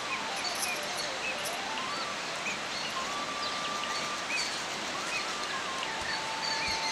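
Outdoor ambience: a steady even hiss with scattered short bird chirps, and a slow wavering tone that steps up and down, then holds level near the end.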